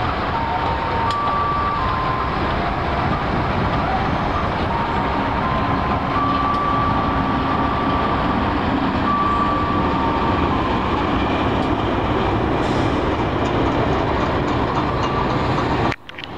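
Diesel-hauled passenger train passing close by: a CC206 diesel locomotive goes past at the start, then the coaches roll by with steady wheel-on-rail noise. Faint whining tones come and go, and the sound drops out briefly near the end.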